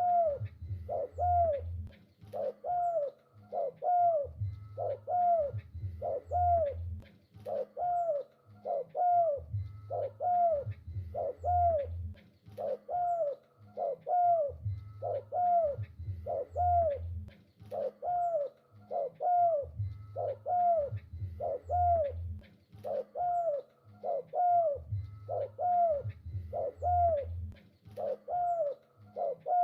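A spotted dove cooing steadily in full voice: a long even run of short coos, about one every second or less, each note sliding down in pitch. A low hum comes and goes underneath.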